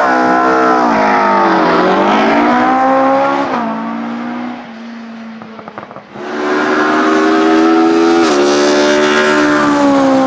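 A BMW 2002 racing car's eight-valve four-cylinder engine at full throttle, pulling away hard with revs dipping and climbing, then an upshift about three and a half seconds in as it fades away. From about six seconds in it is loud again at high revs, with another upshift about two seconds later.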